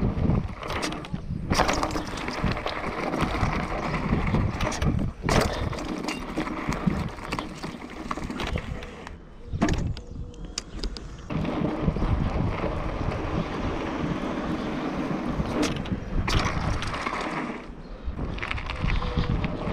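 Rockrider mountain bike ridden over a dirt track: a steady rush of tyres rolling on dirt and gravel, with the bike rattling and about four sharp knocks from bumps or landings.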